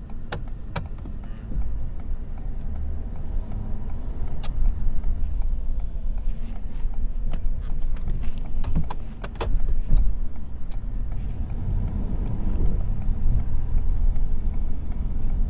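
Pickup truck running as it plows snow, heard from inside the cab as a steady low rumble, with scattered sharp clicks and knocks.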